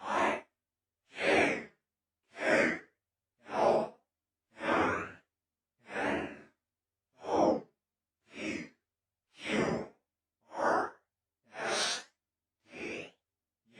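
A man whispering the letters of the alphabet one at a time, about twelve breathy, unvoiced syllables spaced roughly a second apart.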